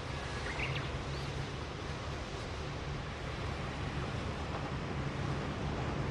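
Steady wash of surf and wind, with a low steady drone underneath that grows slightly louder near the end. A brief high chirp comes about half a second in.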